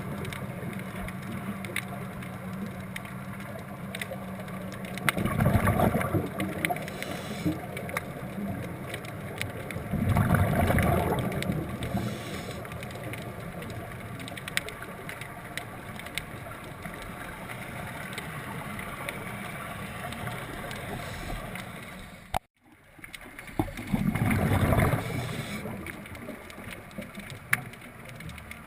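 Scuba diver's exhaled bubbles rushing from the regulator underwater: three loud bursts, about five, ten and twenty-four seconds in. Between them runs a steady crackle of fine clicks.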